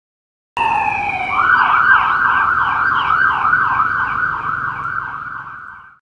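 Police car siren starting abruptly with a falling tone, then switching to a fast yelp that sweeps up and down about two to three times a second. It fades near the end and then cuts off.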